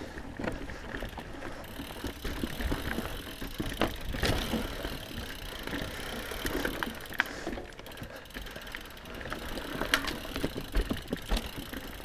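Mountain bike riding over rough dirt trail: tyres rolling on dirt and rocks, with irregular knocks and rattles from the bike's chain and frame over the bumps.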